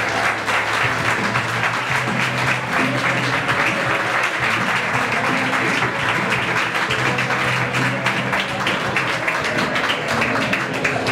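Music playing over the hall's loudspeakers while a crowd claps continuously.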